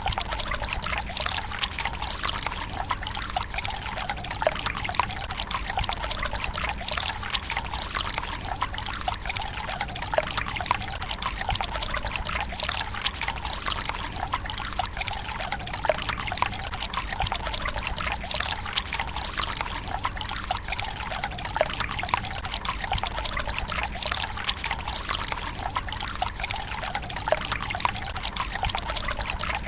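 Water pouring from a bamboo spout into a Japanese tsukubai stone basin: a steady splashing trickle.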